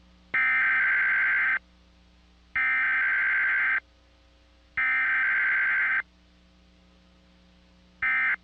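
Emergency Alert System SAME header tones: three identical bursts of raspy digital data, each about a second long with about a second between them. Near the end a much shorter burst follows, the first of the end-of-message codes that close a Required Weekly Test.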